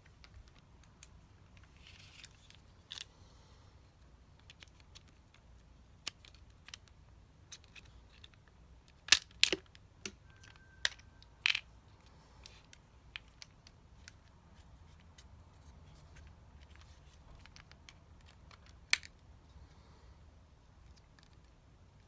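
Scattered small clicks and taps of small parts and hand tools being handled during bench work on a Shimano Di2 shift lever. The sharpest clicks come in a quick cluster about nine seconds in, a few more about two seconds later, and a single one near the end.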